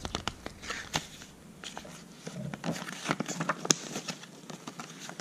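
A paper booklet handled and its pages opened, with light rustling and a few sharp clicks.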